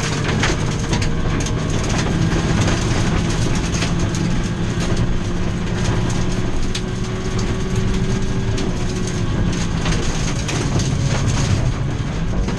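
Ford Fiesta V1600 rally car's engine pulling hard at speed on gravel, heard from inside the cockpit, with loose stones pinging against the underbody. The engine note climbs slowly, changes about nine seconds in, then climbs again near the end.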